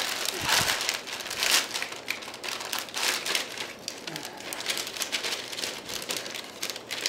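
Paper lining in a wooden mold crinkling and rustling as a wooden stick pushes and scrapes a lump of half-hardened melted polyethylene into it. The sound comes as irregular scrapes and crackles.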